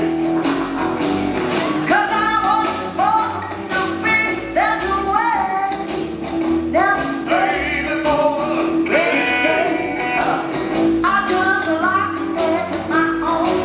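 Live rock band music with a female lead vocal over a steady drum beat.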